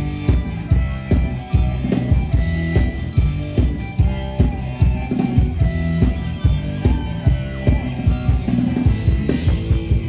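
Thai ramwong dance music from a live band over a PA: drum kit keeping a steady beat under a bass line and guitar.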